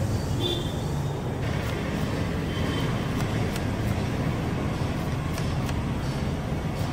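Steady low rumble of street traffic. From about a second and a half in, irregular sharp taps of a knife chopping shredded cabbage against a wooden board.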